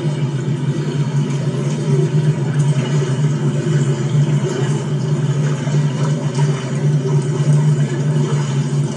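A motor vehicle running steadily: a constant low hum under a rushing noise.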